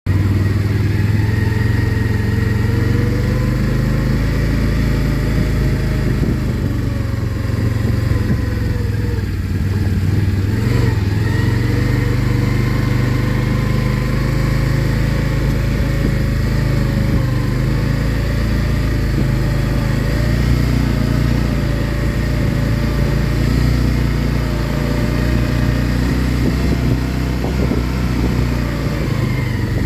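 Can-Am 1000 ATV's V-twin engine running steadily while being ridden, its pitch drifting gently up and down with small throttle changes. A brief knock comes about eleven seconds in.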